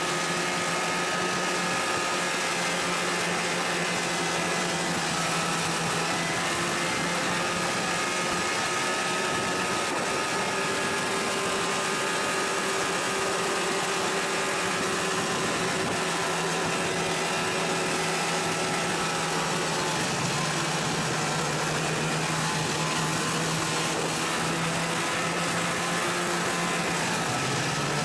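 Polaris two-stroke snowmobile engine running at a steady cruise with track and wind noise, its pitch shifting slightly a few times with the throttle.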